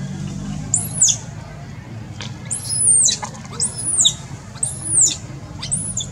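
Baby macaque crying in about five high-pitched squeals, each rising and then falling, roughly one a second: the distress cry of a hungry infant wanting its mother.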